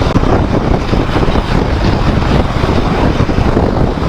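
Wind rushing and buffeting over the microphone of a motorcycle rider cruising at highway speed, with the bike's running noise mixed in underneath.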